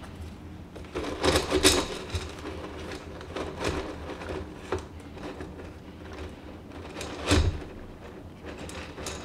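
Clay pebbles shifting and clicking against a glass vase as hands push plant stems in among them, with leaves rustling. The clicks and rustles come irregularly, loudest about a second and a half in and again near the end.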